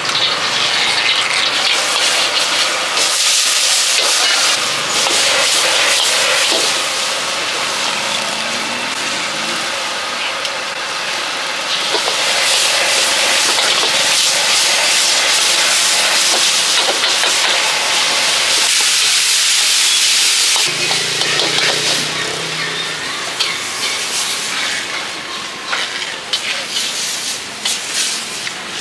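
Food stir-fried in a wok over a big flame: a loud, steady sizzling hiss, with the metal spatula scraping and clanking against the wok, the clatter more frequent in the last third.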